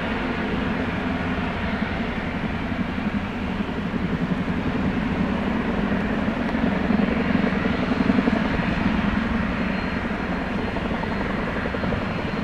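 Turbine aircraft running on the ground, a steady heavy drone with a fast beat in it, swelling louder about halfway through and easing back near the end.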